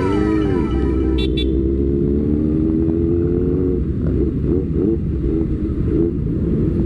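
Motorcycle engine running on the road over low wind and road rumble. Its pitch climbs steadily for about three seconds as it accelerates, then rises and drops in short steps. In the first second a falling, whistle-like tone fades out.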